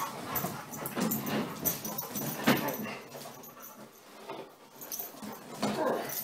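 A dog vocalizing excitedly in play as it jumps at a person, in short, irregular sounds, with a sharp one about two and a half seconds in.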